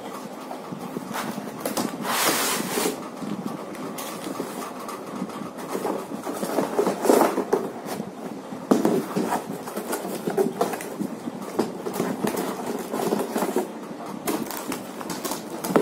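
Cardboard laptop carton being handled and slid up off its foam packing inserts: scraping, rustling and many short knocks of cardboard, with a longer scrape about two seconds in.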